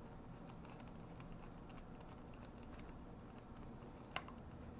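Faint, scattered small clicks and ticks of a hand screwdriver turning out the long pistol-grip screw of an AR-style rifle's lower receiver, with one sharper click about four seconds in.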